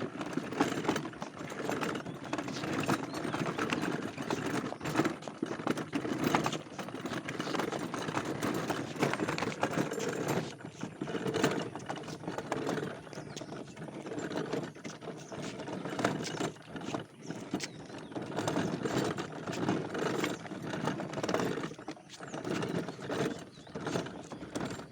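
Toy car being driven along, a continuous irregular rattle and clatter of its wheels and plastic parts.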